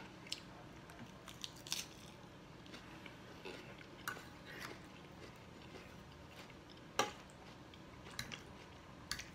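Close-up chewing of a mouthful of crisp salad lettuce, with scattered crunches and small clicks, among them fork contact with the plate; the sharpest click comes about seven seconds in.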